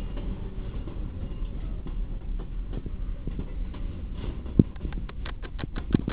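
Container flat wagons of a freight train rolling slowly past with a low rumble. From about four and a half seconds in, the steel wheels set off a quick run of clicks and knocks on the track, with two sharper knocks standing out.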